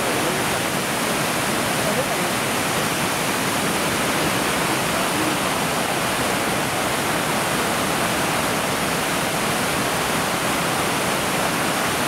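Little Manitou Falls: water pouring over the falls in a steady, unbroken rush.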